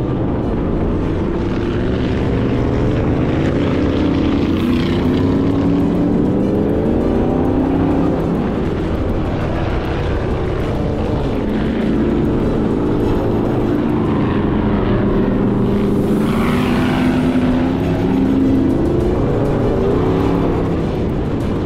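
Sand rail engine running hard, its pitch rising and falling again and again as the throttle is worked, over a steady low rumble.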